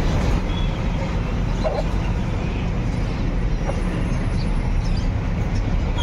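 Steady low rumble of outdoor street background noise, with a couple of faint short sounds over it.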